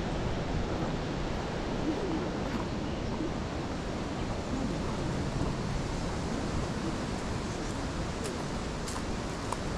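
Steady wind rushing over an action camera's microphone, with a few faint clicks near the end.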